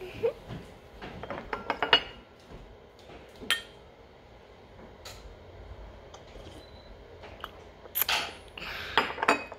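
Small plastic makeup compacts and brushes clicking and clinking as they are handled on a tray, with a quick run of taps in the first two seconds, a couple of single clicks in the middle and another cluster near the end.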